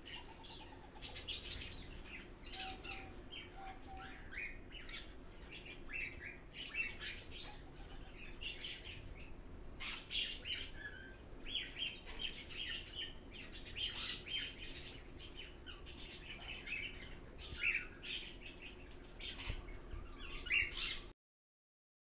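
Many small aviary birds chirping and tweeting, a busy, faint scatter of short high calls overlapping one another.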